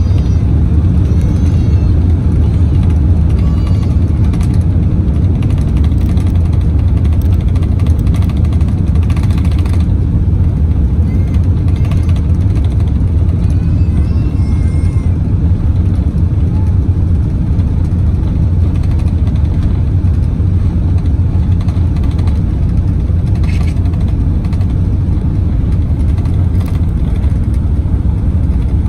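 Airbus A380 cabin noise during the take-off roll at reduced (Flex) take-off thrust: a steady, loud low rumble of engines and runway, heard from inside the cabin in the rear section.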